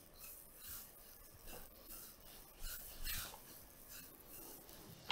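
Hands massaging a person's back: faint, irregular rubbing and brushing of palms on skin.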